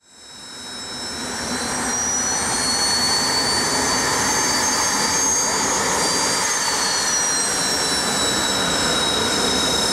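Kawasaki T-4 jet trainer's turbofan engines running: a rushing jet noise with several high whining tones, fading in over the first two seconds. The whine climbs slightly, then drops in pitch from about two-thirds of the way through.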